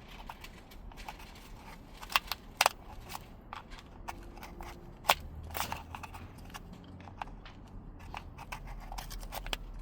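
Scattered sharp plastic clicks and taps as a seatbelt pretensioner's control module is slid and fitted onto a replacement front seatbelt assembly, with a few louder snaps about two, two and a half and five seconds in.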